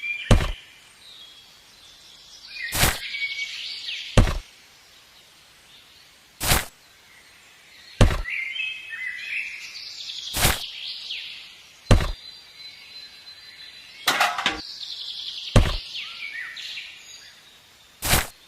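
Birds chirping, with sharp knocks about every one and a half to two and a half seconds, eleven in all.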